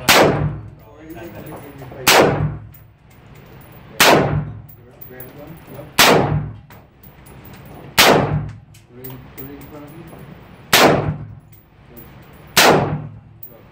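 AR-15 rifle fired seven times in slow, aimed single shots, about one every two seconds, each crack followed by the echo of an indoor shooting range.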